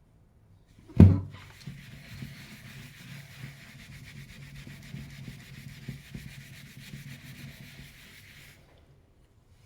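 A sharp knock about a second in, then steady hand scrubbing of a hard surface for about seven seconds, stopping abruptly near the end.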